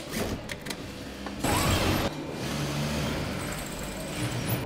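Sewing workshop machinery: a steady machine hum with a few clicks, and a short louder rush of noise about a second and a half in.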